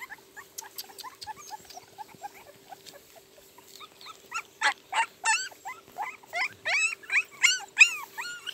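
A litter of very young puppies whimpering and squeaking in short, high-pitched cries, several a second. The cries are faint at first and grow louder and more frequent about halfway through.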